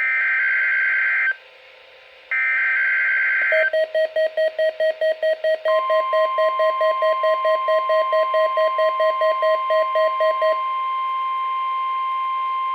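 The last two bursts of a weather radio SAME digital header, short buzzy data squawks with a pause between them. Then a pulsing alarm beep at about four a second, joined about two seconds later by the steady 1050 Hz NOAA Weather Radio alert tone. The tone carries on alone after the beeping stops a few seconds before the end.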